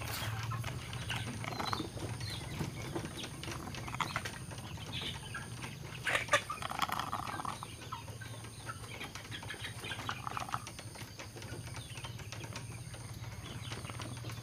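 A chicken being held and hand-fed: scuffling, small clicks and short animal sounds, with a louder flurry about six to seven seconds in.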